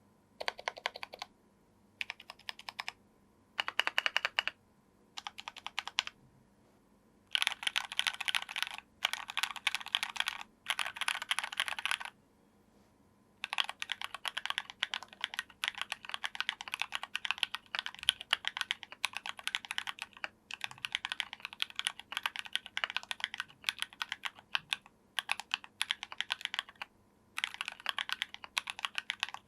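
Mechanical keyboard typing on factory-lubed JWK Matcha 68g linear switches, with PBT Cherry-profile keycaps on a brass plate. It comes in short bursts of keystrokes over the first few seconds, then longer runs of fast typing broken by brief pauses.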